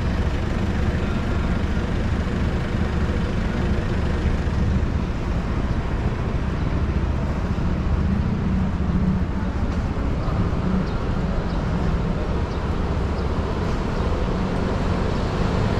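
Steady street traffic noise: vehicles running along a city road.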